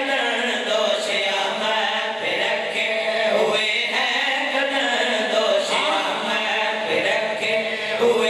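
A group of men chanting a noha (mourning lament) together into a microphone, unaccompanied, with one voice leading and the others joining.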